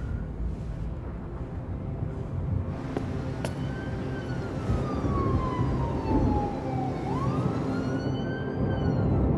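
Siren wailing, one slow fall in pitch and then a rise back up, over a low steady rumble.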